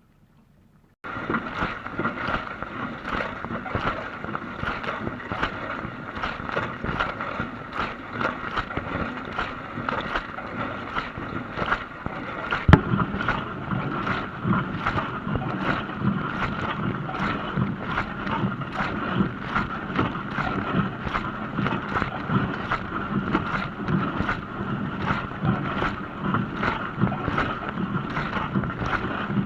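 Dishwasher wash cycle: water spraying and sloshing inside the tub starts abruptly about a second in after a near-quiet pause, then runs on as a dense, churning wash, with one sharp click about halfway through.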